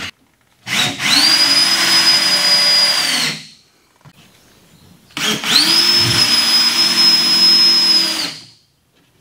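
Power drill driving screws through plywood into a wooden platform. It makes two runs of about three seconds each, each spinning up to a steady whine and winding down at the end.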